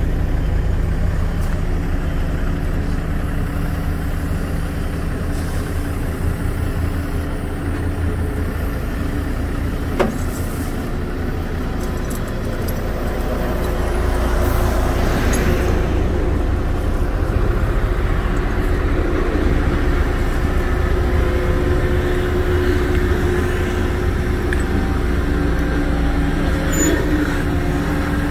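Diesel engine of a crane truck running steadily: a low hum with a few held tones. There is a single sharp click about ten seconds in and a brief rush of noise about halfway through.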